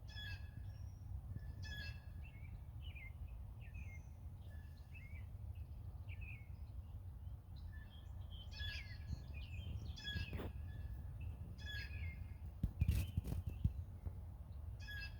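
Songbirds calling over and over in short chirpy phrases, about one every second or two, over a steady low rumble. A few sharp knocks sound about two-thirds of the way in, the loudest near the end.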